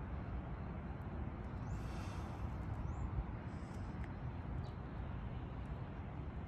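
Steady low rumbling background noise, with a few faint short high chirps now and then.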